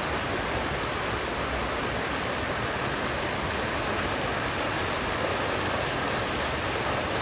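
Shallow rocky stream cascading over stones: a steady, even rush of water.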